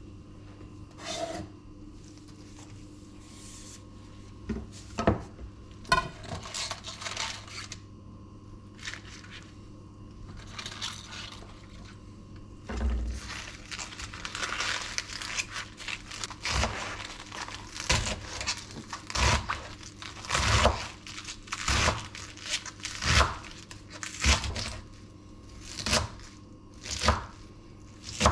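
Fresh spinach leaves rustling and crinkling as they are gathered and folded on a bamboo cutting board, after a few knocks of the board and knife being set down. In the second half a chef's knife chops through the leaves onto the wood in an even rhythm, roughly one stroke a second.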